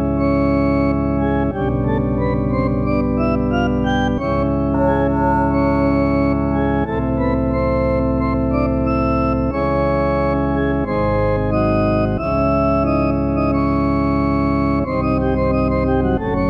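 Background organ music: sustained chords over a steady bass, changing every second or two.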